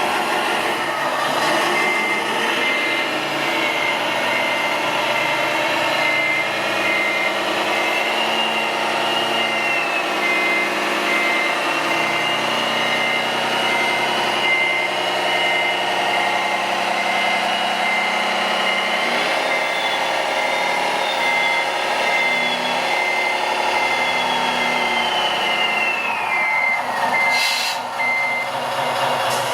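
Model truck reversing: its reversing beeper repeats short beeps at one steady pitch and stops near the end, over a motor whine that rises and falls in pitch with its speed.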